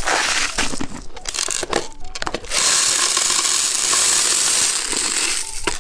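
Tiny hard candy beads rattling in their container, then poured out in a steady rushing stream for about three seconds.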